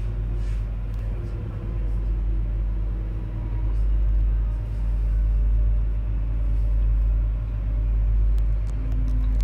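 Cabin noise of an ES2G Lastochka electric train running slowly into a station: a steady low rumble and hum with faint steady tones above it.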